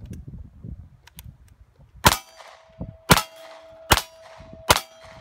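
Four single shots from an MP5K fired from inside its concealment briefcase, less than a second apart, beginning about two seconds in. A steel target rings on between the shots after the first one hits.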